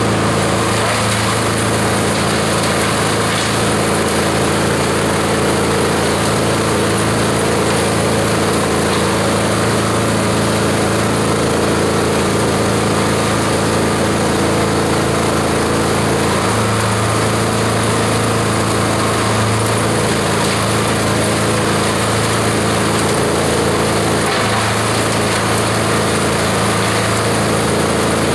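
Esteban 9-in-1 multi-purpose chopper/shredder running steadily under load, its engine driving the cutters as leafy green plants are fed in and shredded.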